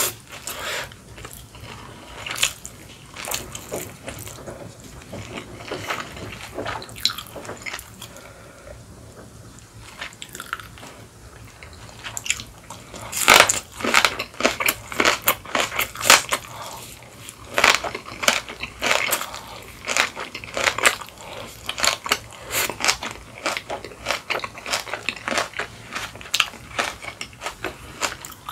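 Close-miked chewing, soft at first, then from about thirteen seconds in a mouthful of kimchi crunched loudly, with many sharp crunches in quick succession.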